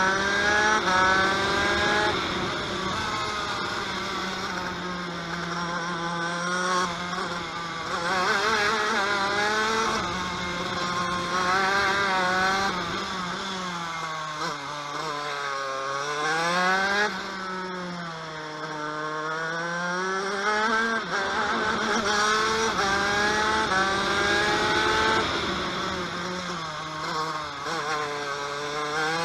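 TM KV92 125cc two-stroke shifter kart engine at racing pace, heard from onboard. It revs up hard through the gears and drops on braking into the corners, over and over, with its lowest revs about halfway through.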